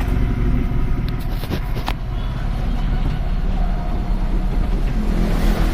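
Hyundai i10 car engine running at idle with a steady low exhaust rumble, the 'bhut bhut' silencer noise that turns out to be an exhaust leak at a broken silencer bolt. Two light clicks about a second and a half and two seconds in.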